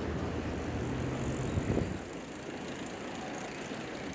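Low rumble of a passing vehicle, with a brief hum and a few knocks, dying down about two seconds in to a quieter steady background.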